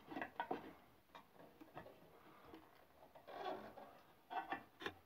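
Small clicks and taps of hands working a bench sander's tilting metal table and its angle-adjustment knob while a plastic square is held against the sanding disc, with a short rub a little past halfway and a sharper click near the end.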